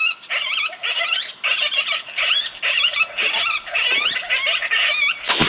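Electronic predator call playing a rapid, unbroken string of high, wavering squealing distress cries. Near the end a single loud gunshot cuts in, with a trailing echo.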